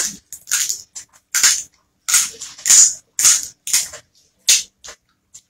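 Snow crab leg shells cracking and snapping as they are broken apart by hand and bitten: about ten sharp, irregular cracks.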